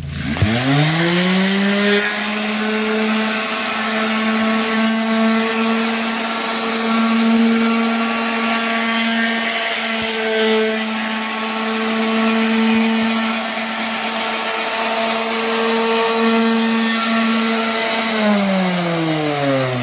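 Electric random orbital sander with 320-grit paper spinning up with a rising whine, running at a steady pitch as it sands raised aluminium lettering, then winding down with a falling pitch near the end.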